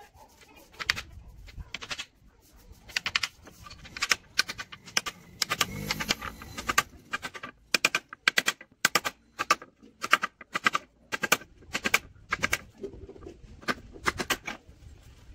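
Sharp taps and knocks in quick runs of two to four strikes, repeated with short gaps, from hand work while kitchen cabinet doors are being fitted.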